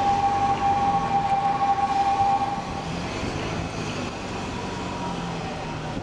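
A steady two-note warning tone held for about three seconds, then fading, over the low, steady running of heavy diesel construction machinery.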